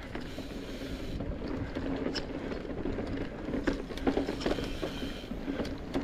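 Mountain bike rolling over a dirt trail: a steady low rumble of tyres and wind on the microphone, with scattered clicks and rattles from the bike over bumps.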